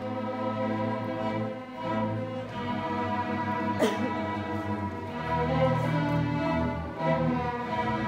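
An orchestra with bowed strings (violins and cellos) playing sustained music that starts abruptly. About four seconds in, a short sharp sound with a quick downward pitch slide cuts through.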